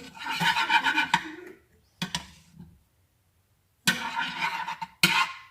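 Metal utensil scraping and clinking against a dish while butter is scooped out for frying, in two short stretches with a sharp click after each.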